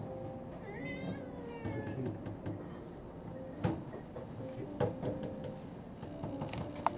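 A domestic cat meows once, about a second in, a short call that bends down in pitch. Two sharp clicks follow later.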